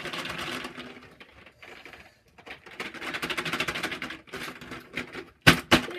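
Advent calendar packaging being opened by hand, making rapid crinkling and clicking in two spells. Two sharp knocks come near the end and are the loudest sounds.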